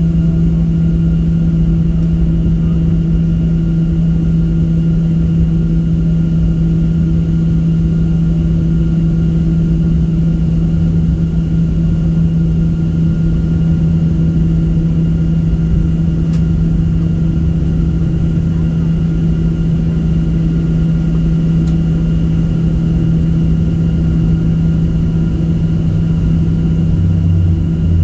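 Cabin noise of a Boeing 737 on the ground after landing: the jet engines' steady low hum over a low rumble, holding even throughout, with the rumble growing a little stronger near the end.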